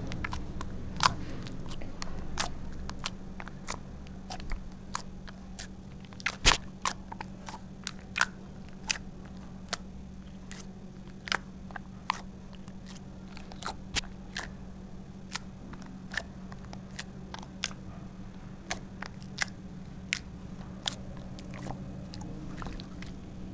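Fingertips poking into a glossy sheet of slime, making sharp, irregular wet pops and clicks as air pockets burst, one or two a second. A steady low hum runs underneath.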